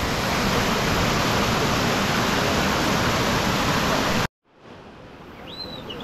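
Loud, steady rushing of river water, cut off abruptly about four seconds in. After a moment's silence comes a much quieter hiss with a few short high chirps.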